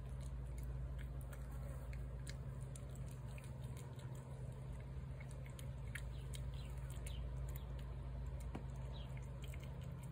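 A cat chewing and lapping food from a plate, with many small wet clicks and smacks over a steady low hum.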